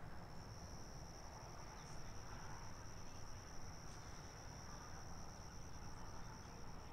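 Insects trilling in one continuous high-pitched drone, faint, over low background hiss; it cuts off abruptly at the end.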